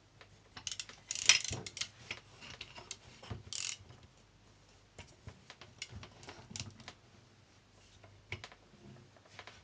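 Hand tools clicking and small metal parts knocking while a nut on the blower engine is worked loose with a socket, with a cluster of sharp clacks about a second in, a short rasp around three and a half seconds, and scattered clicks after.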